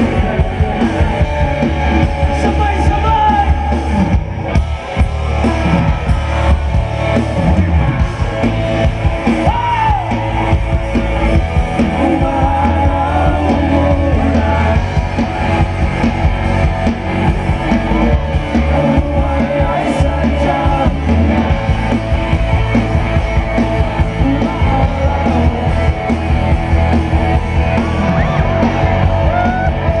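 Live amplified rock music: a band playing loudly with electric guitars, drums and a singer, recorded from the audience.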